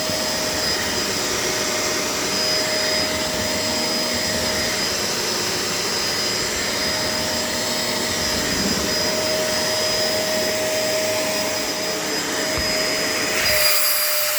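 Vacuum cleaner running steadily, its motor whine holding two steady pitches over a rushing airflow. Near the end the low rumble drops out and the hiss turns brighter.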